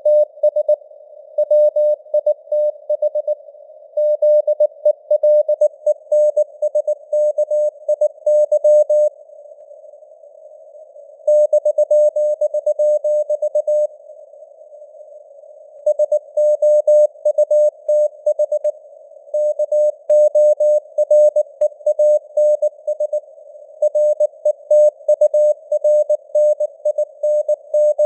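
Morse code (CW) keyed at about 19 words per minute as a single mid-pitched beeping tone, over a soft hiss of simulated radio static with simulated fading of signal strength (QSB). The keying pauses twice for about two seconds, about a third of the way in and about halfway.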